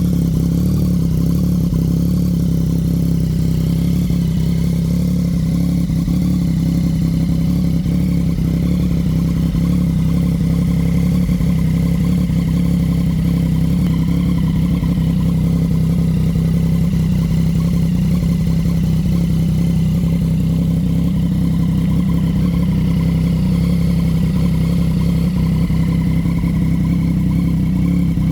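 Yamaha MT-09's three-cylinder engine idling steadily, with an even, unchanging note and no revs.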